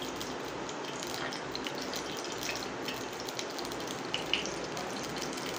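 Cooking oil heating in a small steel pan over a gas burner: a steady hiss with faint, scattered crackles.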